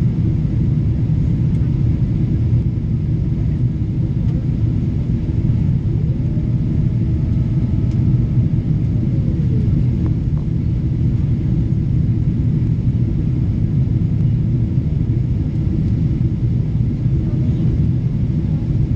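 Jet airliner cabin noise during descent: a steady low rumble of engines and airflow heard inside the cabin at a window seat. A faint whine rises, holds and falls away between about six and ten seconds in.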